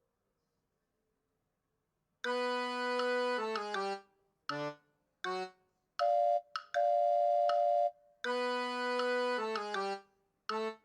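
Electronic music: a simple jingle-like melody of separate synthesised notes, some held and some short, starting about two seconds in.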